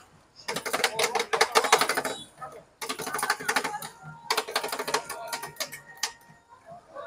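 Rapid clattering clicks in three bursts, each about a second or more long, with short pauses between them.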